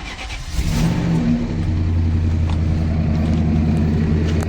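A high-mileage car engine, about 300,000 km, is started. It catches within the first second, revs briefly, then settles into a steady idle. The owner judges its piston and connecting-rod group to be well worn.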